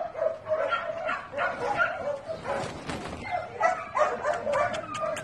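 Repeated short animal yips and whines, many brief high cries one after another.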